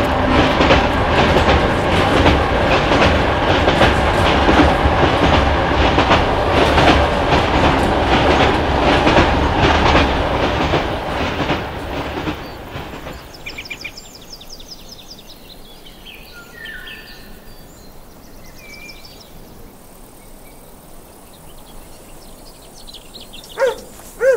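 Train carriage running on rails, a dense steady rattle and clatter of wheels on rail joints, fading out about halfway through. Quiet outdoor ambience follows with small bird chirps, and two short barks come near the end.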